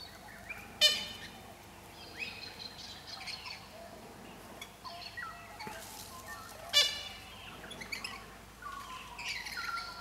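Little corellas calling: two loud, harsh screeches, one about a second in and another near seven seconds in, among a scatter of softer chirps and short whistles.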